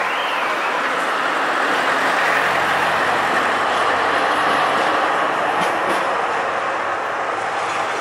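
Articulated tram passing close by, with a steady rumble of steel wheels running on street rails that swells as it goes past and eases toward the end. A few faint clicks come about six seconds in.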